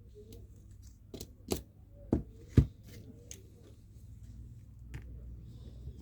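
Sharp plastic-and-metal clicks and taps from a smartphone and small tools being handled during disassembly, about six in all, the loudest about two and a half seconds in.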